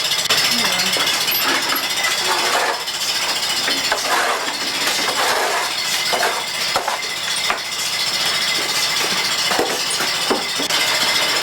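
Milking machine running in a dairy barn: a steady mechanical hum with scattered metal clinks and knocks from the milking equipment.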